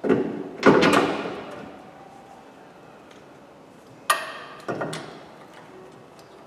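Metal clanking as a van's front wheel hub and brake disc are fitted back onto the stub axle. Two knocks with a ringing tail at the start, then a sharp ringing clank about four seconds in and a duller knock just after.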